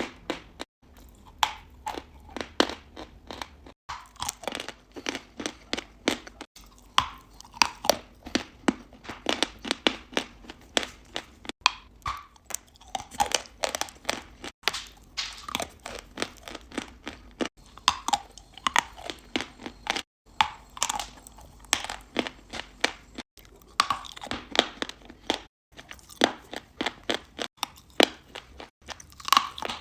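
Close-miked chalk and clay being crushed: a dense run of sharp, crisp crunches with brief pauses every few seconds.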